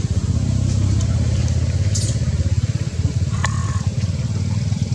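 A small engine running steadily with a low, pulsing hum, like an idling motorbike. A short high chirp cuts in about three and a half seconds in.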